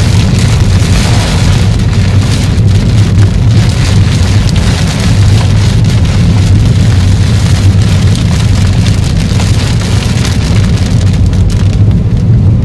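Rain beating on a moving car, heard from inside the cabin over a steady low rumble of the engine and tyres on the road.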